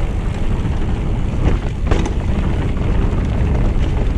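Wind buffeting a mountain bike's handlebar-mounted action camera microphone at speed, over the rumble of tyres on a rough dirt track. A couple of brief rattles from the bike come about one and a half and two seconds in.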